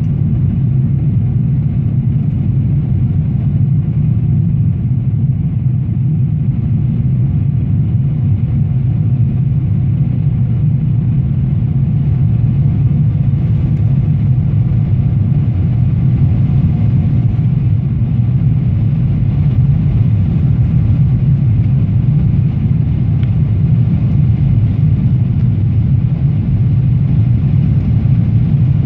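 Steady low rumble inside the cabin of a Boeing 777-300ER in flight: the drone of its GE90 engines and the airflow past the fuselage, heard from a window seat over the wing, with a faint steady whine above it.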